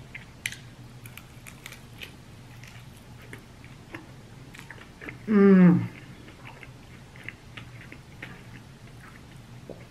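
Close-up chewing and biting of chicken wings: scattered wet smacks and clicks of eating. About five seconds in, a short vocal sound falling in pitch, like an appreciative 'mm'.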